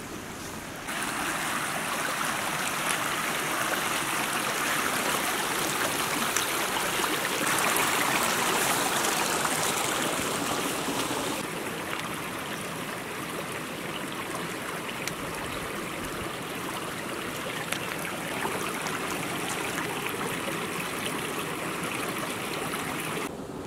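Shallow stream of clear water running over stones, a steady rushing and babbling. It jumps up about a second in and drops back somewhat about halfway through.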